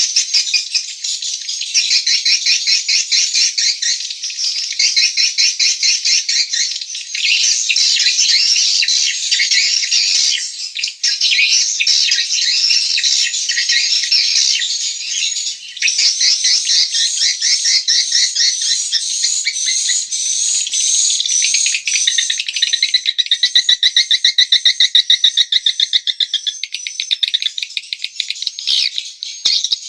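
Edible-nest swiftlets twittering: dense, rapid, high chirps without a break, the pattern shifting every few seconds. A steadier, buzzing trill runs for about three seconds near the end.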